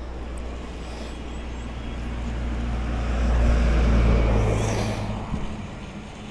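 A motor vehicle passes close by on the road, its engine and tyre noise swelling to a peak in the middle and fading away a couple of seconds later.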